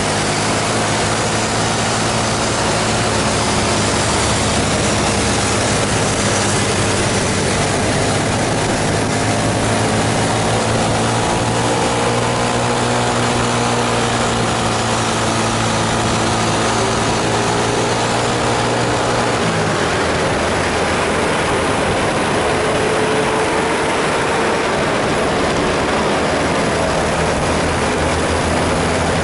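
Heavy bus diesel engine running steadily over a constant hiss, with a second engine's pitch rising and falling around the middle. The low engine note changes abruptly about twenty seconds in.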